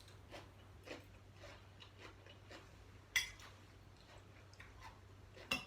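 Faint clicks and clinks of cutlery against plates during a meal, with a sharper clink about three seconds in and another near the end, over a faint steady low hum.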